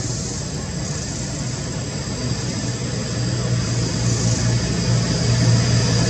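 A steady low engine drone, likely a passing vehicle or aircraft, growing louder through the second half, with a steady high hiss above it.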